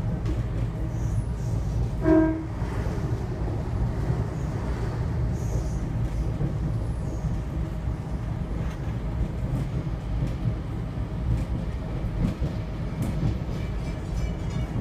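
Steady low rumble of a diesel railcar running along the track, heard from inside the carriage, with one short horn toot about two seconds in.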